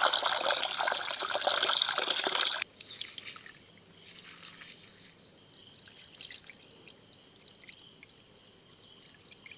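Water from a tap pouring and splashing into a clay pot, cutting off sharply about two and a half seconds in. After that, faint swishing and sloshing as hands wash rice in the water in the pot.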